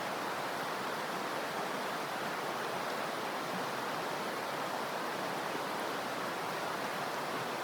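Steady rush of river water running over a shoal, an even hiss with no breaks.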